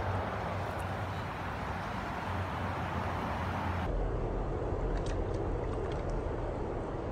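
Shallow rocky stream running steadily, with a low rumble underneath. The sound shifts abruptly about four seconds in, and a few light water ticks and splashes follow as a hand holds a trout in the current.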